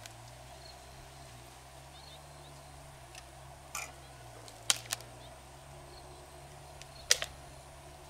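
Freshwater mussel shells clacking against each other as they are handled: one click, then two sharp pairs of clacks about halfway through and near the end, over a steady low background noise.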